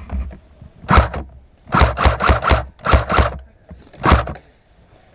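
An ICS L85A2 electric airsoft rifle firing single shots, each a sharp mechanical clack: one about a second in, a quick run of several, then a last shot near the end.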